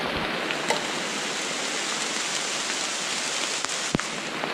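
Steady rain falling on forest leaves, with a few scattered drop ticks and one sharper tap a little before the end.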